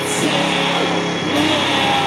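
Doom metal band playing live at high volume: a dense wall of heavily distorted guitar and bass, with a few sliding pitched notes over it.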